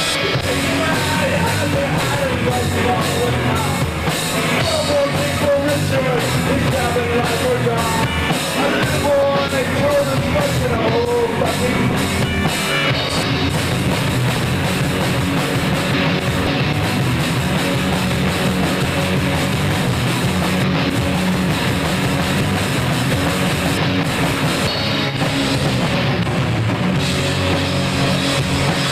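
Rock band playing live at full volume, the drum kit driving a steady beat under the guitars, with a wavering melody line over the first twelve seconds or so.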